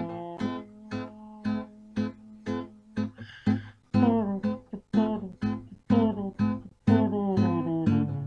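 Acoustic guitar music, strummed in a steady rhythm of chords about twice a second.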